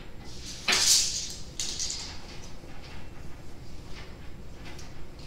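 Steel tape measure blade retracting into its case with a rattling whir about a second in, followed by a second, weaker rattle.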